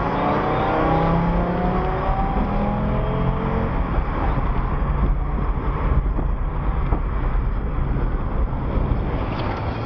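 Car engine accelerating, its pitch climbing for the first few seconds, then a steady engine and road rumble.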